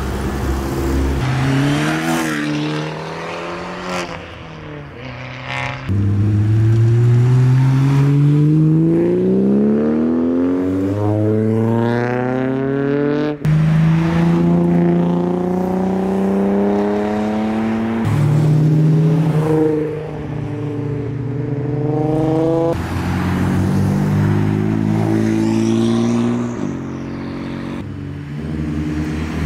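Modified tuner cars' engines accelerating away one after another, each climbing steadily in revs for several seconds. The sound changes abruptly from one car to the next several times.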